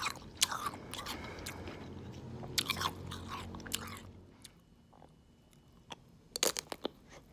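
A person crunching and chewing a frozen ice pop: sharp crunches and chewing in the first half, a quieter pause, then a few sharp crunches as a fresh bite is taken near the end.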